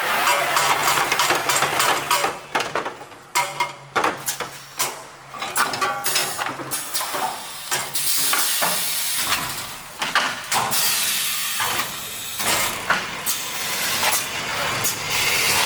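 DBQG 1500 CNC automatic paper-tube core cutting machine running: a busy clatter of sharp knocks and clicks, with spells of hissing about eight seconds in and again a few seconds later.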